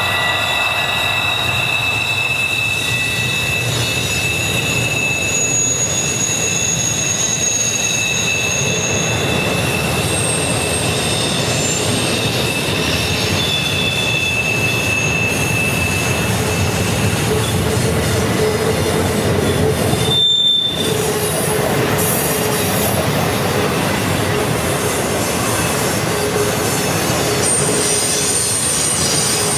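Model freight train rolling past on a curve: a steady rumble of the cars' wheels on the track, with thin high-pitched wheel squeals coming and going.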